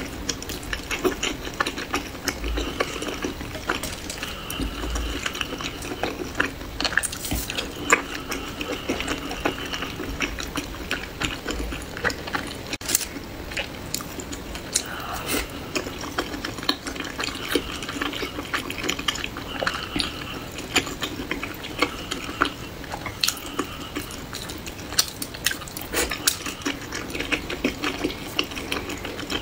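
Close-miked wet chewing and slurping of pan-fried soup dumplings in chili-oil broth: many small sticky smacks and clicks of the mouth.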